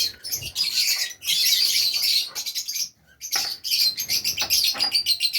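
A flock of Fischer's lovebirds chattering with rapid, high chirps that drop out briefly about three seconds in.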